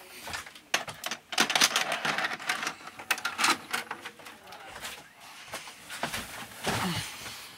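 Plastic clicks and rattles of a VHS cassette being handled and loaded into a VCR, with bumps and rubbing from the phone being moved about.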